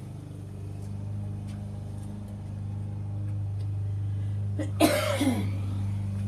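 Steady low drone of a car engine, slowly growing louder, with one short, loud cough from a person about five seconds in.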